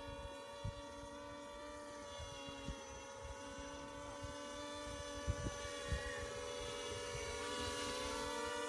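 Quadcopter's electric motors and propellers whining steadily in flight overhead, a stack of tones that drift slightly in pitch and grow a little louder near the end. A few brief low thumps sound at the microphone.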